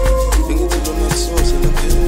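Background music with a steady drum beat, heavy bass and a long held note.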